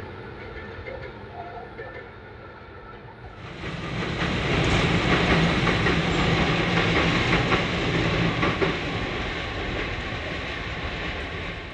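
A passenger train passing. At first a distant, quieter rumble. From about three seconds in, the coaches rush past close by, loud, with the wheels clattering rapidly over the rail joints.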